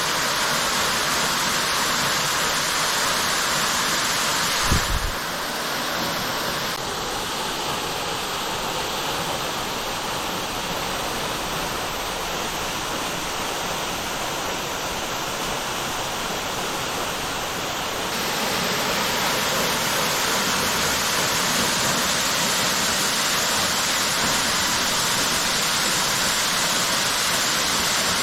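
A 35 m waterfall rushing in a steady, loud wash of falling water. About five seconds in there is a brief low thump, and after it the water sounds a little quieter until about two-thirds of the way through, when it comes back up to full strength.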